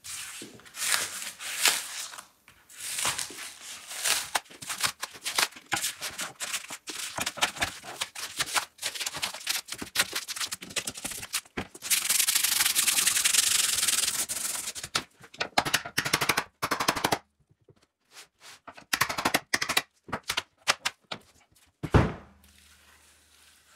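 Hand rubbing and scraping on a workpiece, like sanding, in irregular strokes. About halfway through comes a longer unbroken rub of about three seconds, then a few pauses and one sharp knock near the end.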